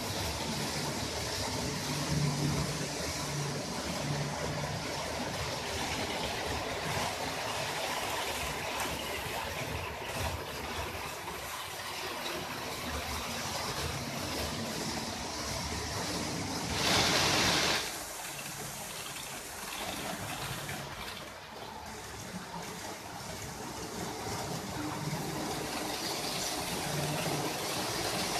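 Model railway train running along the layout track: a steady rolling rattle and hiss of small wheels on rail, with a brief louder clatter about 17 seconds in.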